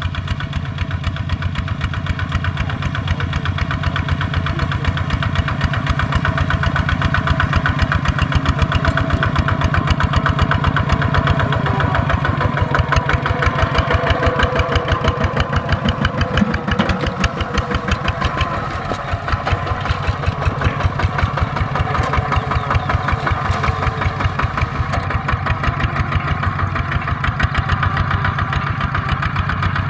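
Kubota ZT140 walking tractor's single-cylinder diesel engine running steadily under load as it pulls a tillage implement through dry soil, with a fast, even beat of firing strokes.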